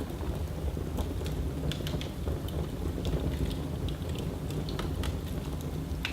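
Wood fire burning in a fireplace: irregular crackles and pops over a low, steady rumble of the flames, with a sharper pop near the end.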